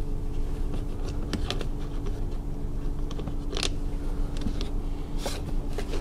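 Small scattered clicks and scrapes of a screwdriver backing a screw out of a plastic rear parcel-shelf trim panel, with the panel being handled, over a steady low hum.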